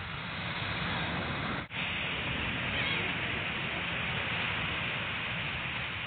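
Steady rushing outdoor noise by the sea, with a brief dropout just under two seconds in.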